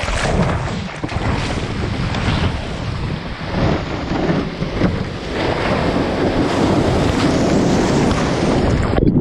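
Ocean surf washing and breaking, with wind buffeting the microphone in irregular gusts.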